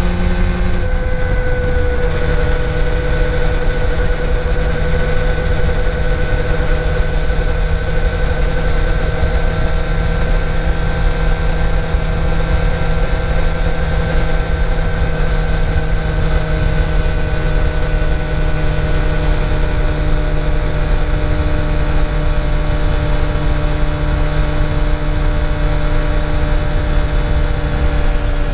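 Yamaha TDR250's two-stroke parallel-twin engine running steadily under way. Its note drops slightly about a second in, then holds an even pitch over a heavy low rumble.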